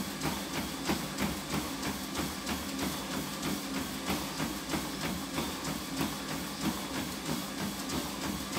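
Running footfalls on a motorised treadmill, an even beat of about three steps a second, over the steady hum of the treadmill's motor and belt.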